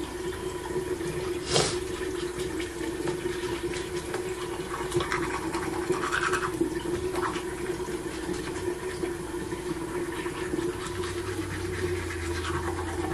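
Teeth being brushed, with a tap running steadily into the sink.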